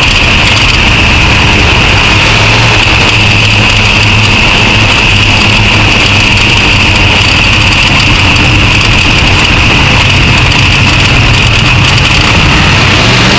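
Dirt modified race car's V8 engine running loud and steady at low speed, heard from inside the cockpit.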